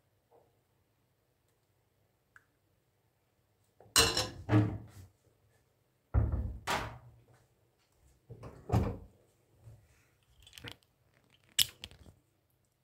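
A series of loud thumps and knocks, about seven of them, starting about four seconds in, some in quick pairs.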